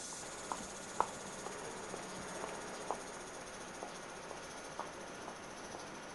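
Cicadas buzzing in a steady high-pitched drone, with a few faint sharp clicks scattered through it.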